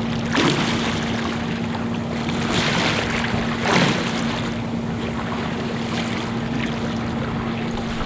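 Open-ocean water rushing and splashing along a moving boat's hull, with a few louder wave splashes about half a second in and around three to four seconds in. A steady low hum runs underneath.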